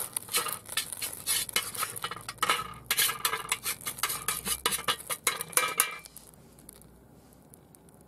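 Magnesium-alloy drilling swarf from a VW Beetle gearbox bellhousing burning in a tin under a flame, crackling and spitting in quick irregular pops. The crackling dies away about six seconds in, leaving only a few faint ticks.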